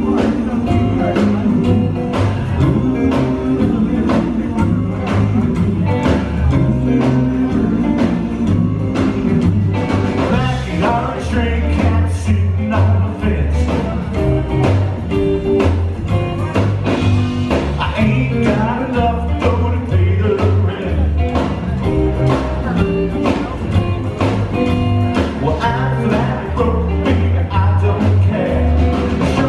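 Live rockabilly band playing: slapped upright double bass, drums, hollow-body electric guitar and keyboard, with a man singing, over a steady beat.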